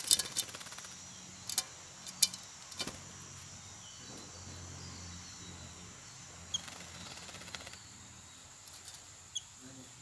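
Yellow-billed babbler bathing in a basin of water, splashing and shaking its wings: a quick burst of splashes at the start, then a few single splashes over the next three seconds. Later a short high bird chirp comes twice.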